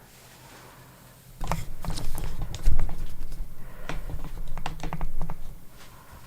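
Close handling noise: a run of quick clicks, rustles and bumps for about four seconds, starting a second in, consistent with the furred head being shifted and adjusted while worn.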